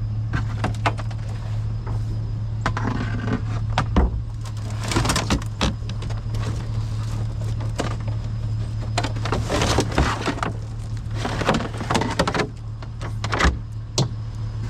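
Steady low hum of a vehicle engine running, with scattered knocks, clicks and rustling of things being handled.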